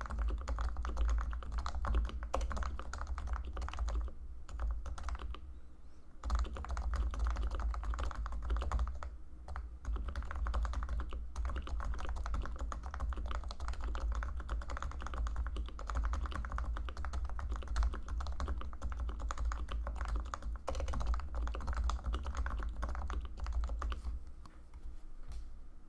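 Continuous fast typing on a Leopold FC980C keyboard with Topre electrostatic capacitive switches that have been lubricated, a dense stream of soft keystrokes with a brief lull about five seconds in.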